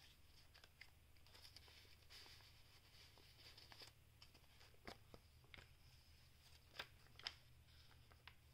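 Faint rustling and crinkling of a junk journal's paper pages being handled and turned, with a few sharper paper crackles about five and seven seconds in.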